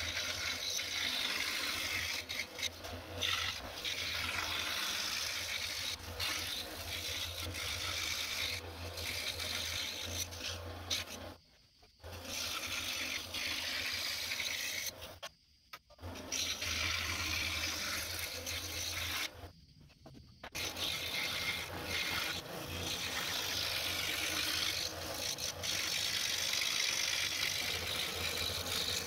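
DeWalt scroll saw running, its blade cutting through a wooden sheet: a steady low hum with a rasping cut over it. The sound breaks off briefly three times in the middle stretch.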